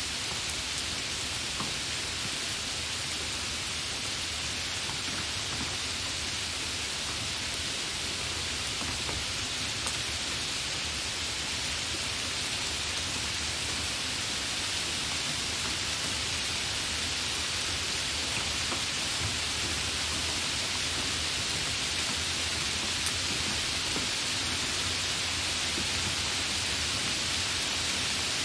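Heavy rain falling steadily: a dense, even hiss with no let-up, with now and then a single drop tick standing out.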